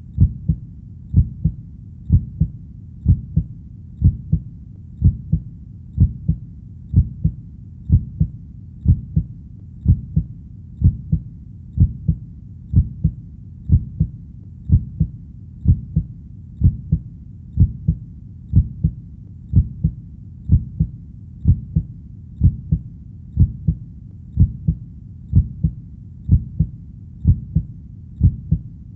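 Heartbeat: a steady, slow rhythm of low, muffled lub-dub thumps, about one beat a second.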